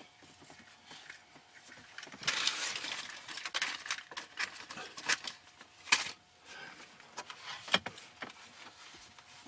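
Rustling and handling noises with a few sharp clicks and taps, as a power cord is worked into gaps in a car's plastic interior trim. The rustling is busiest a couple of seconds in, and the two loudest clicks come about six and nearly eight seconds in.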